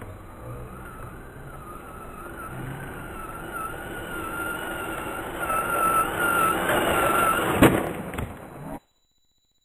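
Traxxas Rustler VXL RC truck's brushless motor whining at high speed, with a wavering pitch, growing louder as the truck closes in. About seven and a half seconds in comes a loud crash as it hits the camera, a few smaller knocks follow, and the sound cuts off suddenly about a second later.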